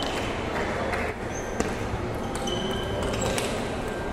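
Table tennis ball clicking a few times off the paddles and table, sharp and sudden, over the steady noise and chatter of a large hall.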